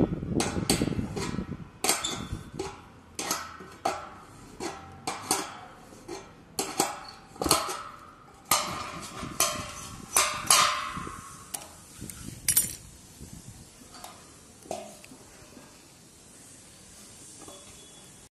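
Adjustable spanner clinking and scraping against the steel bracket and bolts of a satellite dish mount as the bolts are loosened. The metal clinks come irregularly, some ringing briefly, and thin out and grow fainter over the last few seconds.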